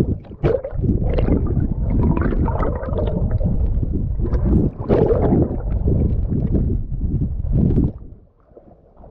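Sea water gurgling and sloshing around a submerged microphone, loud and muffled with irregular surges, then dropping away sharply about eight seconds in as the microphone comes up at the surface.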